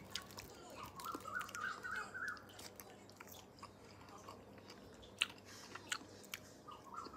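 Close-up chewing and small mouth clicks of someone eating santol fruit. A faint run of repeated chirps sounds in the background about a second in, and again right at the end.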